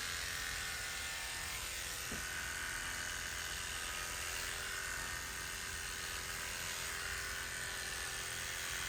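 Electric hair clipper running steadily while shaving hair close to the scalp.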